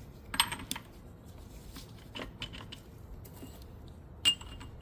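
Metal transmission parts clinking as a synchro and gears are handled and fitted onto a manual gearbox shaft: a few sharp clicks about half a second in, small taps in the middle, and one loud ringing metal clink near the end.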